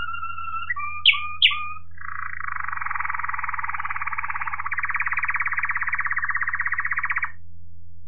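Waterslager (Malinois) canary singing. It holds a steady whistled note, gives two short sharp notes, then runs a fast rolling trill for about five seconds that stops abruptly. A steady low hum sits under the song.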